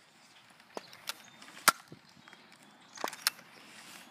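Sharp plastic clicks and knocks from a Nerf blaster being handled and worked: about five in all, in two close pairs around the first and third seconds, with the loudest single click about halfway through.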